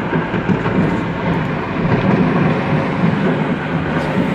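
Steady road and engine rumble heard inside a moving vehicle, with a few faint sharp cracks near the end.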